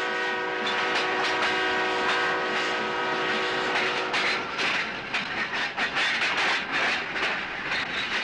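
A train sounds a long, steady multi-tone horn for about four and a half seconds. After that come the rapid, irregular clatter of its wheels over the rails and a hissing rush as it passes.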